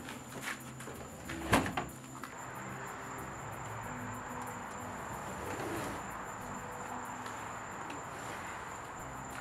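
Sliding glass door knocked and rattled in its frame as it is handled: one sharp knock about a second and a half in among a few lighter clicks, then a steady faint hiss.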